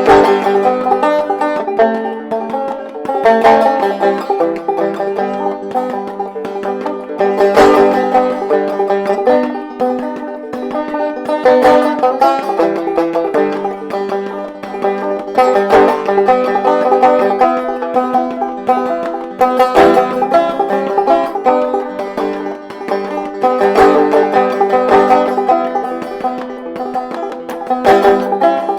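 Mulheron banjo played clawhammer style: an instrumental break of quick, bright plucked notes and brushed strums in a steady rhythm, with no singing.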